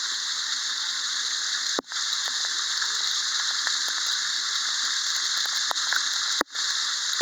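Waterfall rushing as a steady roar of falling water, broken by two brief sharp dropouts, about two seconds in and near the end.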